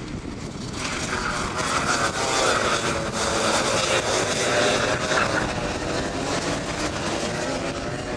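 A pack of Rotax two-stroke racing kart engines passing together, a many-voiced high buzzing whine that swells about a second in and stays loud, with pitches rising and falling as the karts accelerate. Wind buffets the microphone throughout.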